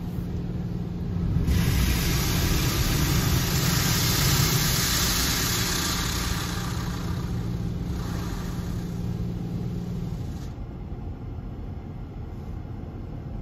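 Automatic car wash machine heard from inside the car: water spray hisses against the body and glass over a steady motor hum. The spray starts about a second and a half in, and both spray and hum cut off about ten seconds in, leaving a low rumble.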